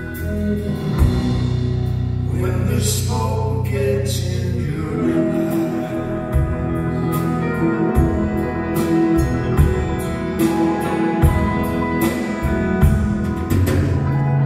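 Live band music recorded from the audience in a theatre: an instrumental passage with electric and acoustic guitars over regular drum and cymbal hits.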